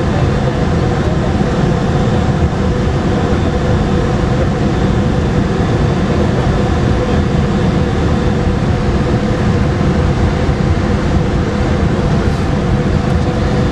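Cabin noise inside a Boeing 717 taxiing: a steady rumble with the even hum of its two rear-mounted Rolls-Royce BR715 turbofans at taxi power.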